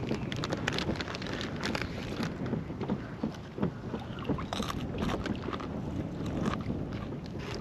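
Wind buffeting the microphone in a steady low rumble, with irregular small splashes and knocks of water against a fishing kayak's hull.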